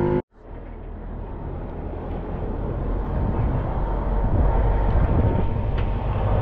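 A low, steady outdoor rumble that builds over the first few seconds after a brief dropout near the start.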